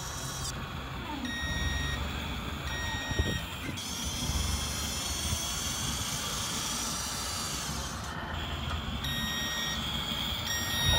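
Radio-controlled model Linde H40D forklift's reversing beeper, sounding long steady beeps: two a little over a second in and two more near the end. Between them a motor whine.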